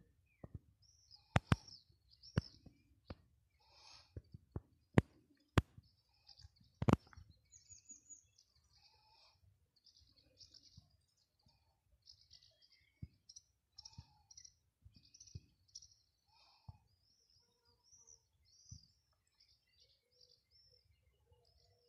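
Small birds chirping in short, repeated calls, with several sharp clicks during the first seven seconds, the loudest about five and seven seconds in.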